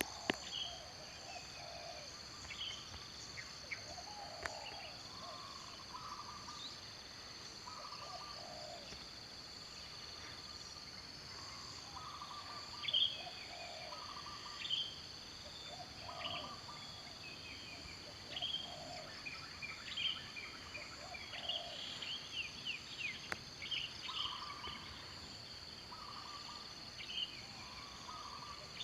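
Outdoor ambience of a steady high-pitched insect drone, with short bird calls repeating every second or two and scattered higher chirps that grow busier about halfway through.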